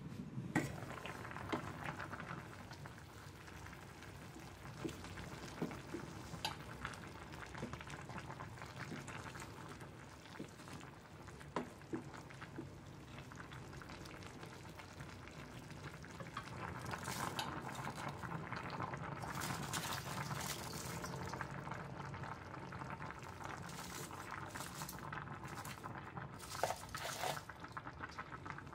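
Chicken macaroni soup simmering in a stainless steel pot, stirred through with a wooden spoon, with scattered sharp knocks of utensils against the pot and lid. The sound grows busier and louder in a stretch past the middle.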